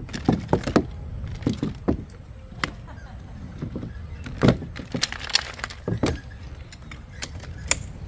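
A folding camp chair's pole frame being unfolded and set up: the poles and hub joints clack and clink together in irregular knocks, with the feet knocking on the wooden deck, the loudest knock about halfway through.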